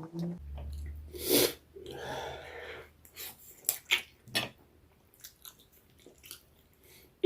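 A person chewing and biting food close to the microphone, with wet mouth clicks and smacks at irregular intervals and a longer, noisier stretch about two seconds in.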